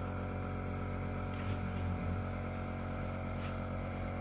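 Nebulizer's compressor motor running with a steady, even hum.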